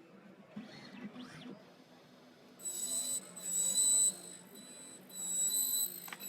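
Key-cutting machine's cutter spinning up in two bursts of a high, steady whine, each about a second and a half long; the first starts a little before the middle and the second near the end.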